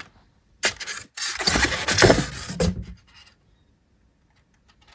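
Styrofoam and box packing being rummaged through by hand: a short scrape, then about two seconds of scraping and rustling.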